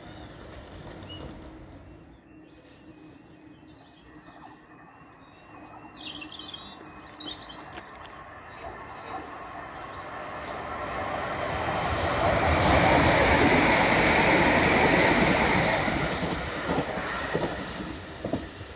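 A Southern electric multiple unit train runs past the platform. Its running noise builds from about nine seconds in, is loudest a few seconds later, then fades away. Birds chirp briefly a little before the train comes near.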